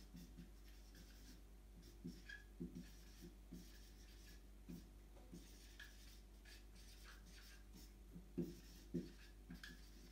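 Felt-tip marker writing on a whiteboard: faint, short strokes in irregular runs as words are written out.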